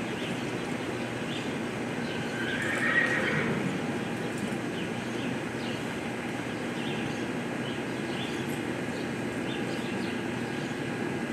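A horse whinnies once, briefly, about three seconds in, over a steady background rumble of the arena.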